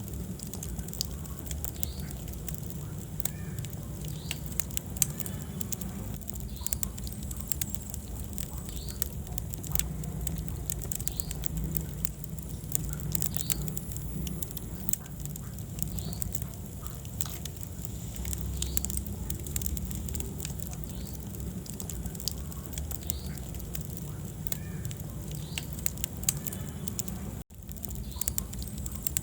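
Wood fire burning in a fireplace: a steady low rumble of flames with frequent sharp crackles and pops from the burning logs. Near the end the sound cuts out for a split second.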